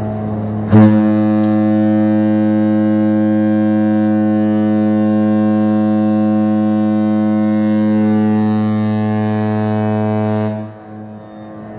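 Cruise ship's horn sounding one long, deep, steady blast. It starts abruptly about a second in and lasts about ten seconds before cutting off near the end.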